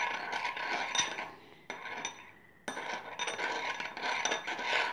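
Metal spoon stirring a gritty salt-and-soap slime mixture, scraping against a ceramic plate, in two bouts with a short pause about two seconds in.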